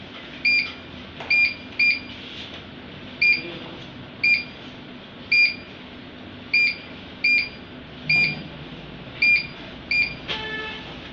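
APC Smart-UPS front panel beeping each time its display button is pressed: about a dozen short, high, identical beeps at uneven intervals as the LCD steps through its status screens.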